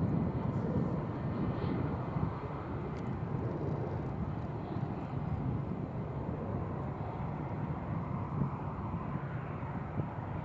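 Airbus A350-900's Rolls-Royce Trent XWB turbofan engines giving a steady, deep rumble, a little louder in the first second.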